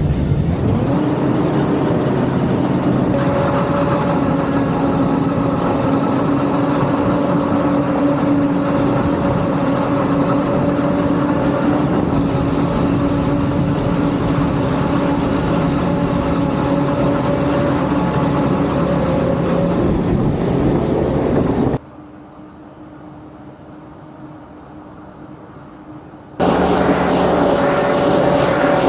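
Large harvesting machine running under load: a steady engine and machinery drone with a constant whine. It changes abruptly a few times, and one stretch of a few seconds near three-quarters through is much quieter.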